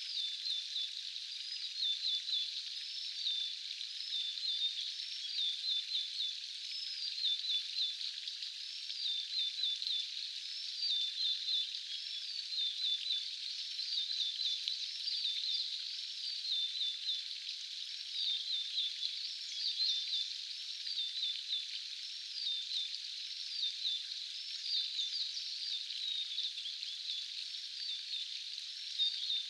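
A small songbird gives quick runs of short, high chirps and little rising notes, over and over, above a steady hiss.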